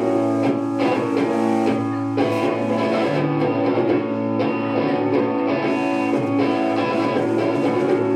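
Live rock band kicking into a song all at once: electric guitar and bass guitar play loud chords in a steady rhythm.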